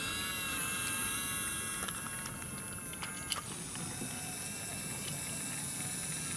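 Small battery motor of a toy BRIO locomotive running with a steady whine as it pulls wooden engines along wooden track. There is one sharp click a little over three seconds in.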